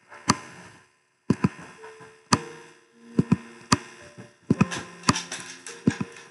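About a dozen sharp knocks at an irregular pace, some in quick pairs, each leaving a brief ringing tone as it dies away.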